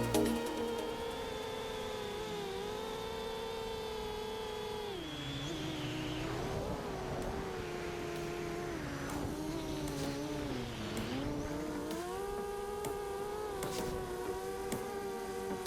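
FPV racing quadcopter's brushless motors whining, the pitch dipping and rising with the throttle, with a few short clicks near the end.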